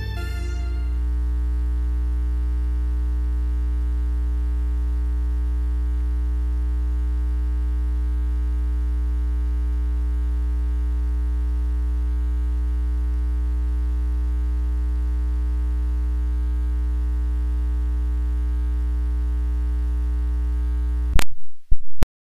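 Loud, steady electrical hum with a stack of overtones in the stream's audio line, a sign of a faulty microphone connection. Near the end it breaks off with a few sharp pops, and then the sound cuts out completely.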